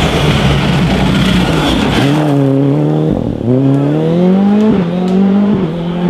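Ford Fiesta R5 rally car's turbocharged four-cylinder engine at full throttle as the car passes close by. It then pulls away through the gears, its engine note climbing in pitch and dropping back at two quick upshifts.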